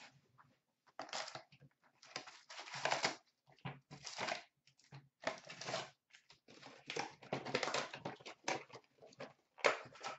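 A cardboard hobby box of Fleer Showcase hockey cards being torn open, then the wrapped packs inside pulled out and set down, in irregular bursts of tearing, rustling and crinkling.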